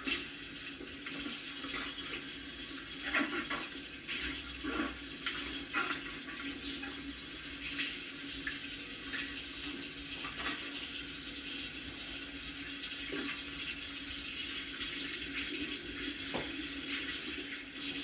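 Kitchen tap running steadily into a sink while dishes are washed and rinsed by hand, with a few scattered knocks and clinks of dishes. The water shuts off at the very end.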